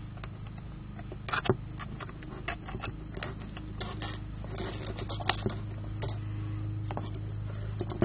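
Irregular small metallic clicks and taps of East German Volkspolizei handcuffs, aluminium with steel loops, as fingers work the pin and key at the lock. The sharpest clicks come about one and a half seconds in and again a little after five seconds.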